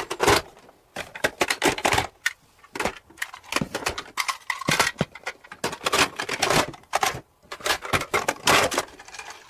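Hard plastic toys clattering and clicking as they are handled, in quick, irregular knocks.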